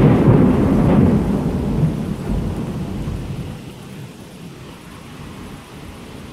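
Thunderclap: a sudden crack that rolls into a loud low rumble and fades away over about four seconds, with steady rain underneath.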